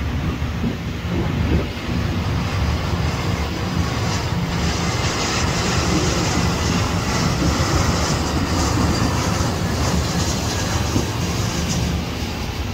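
Jet airliner on final approach, its engine noise swelling into a loud hiss as it passes close overhead, then easing off toward the end as it comes down onto the runway. Wind rumbles on the microphone underneath.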